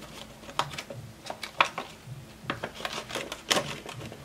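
Paper banknotes handled and slid into a clear plastic binder pocket: irregular crinkling and rustling of the bills and the plastic sleeve, with a cluster of sharper crackles about three and a half seconds in.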